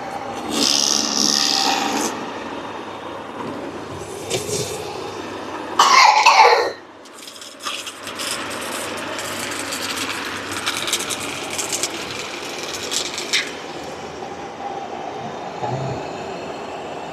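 Ecovacs Deebot robot vacuum running on a tiled floor: a steady motor hum with brush and wheel noise, and a crackly ticking stretch past the middle. A short, loud burst about six seconds in stands out above it.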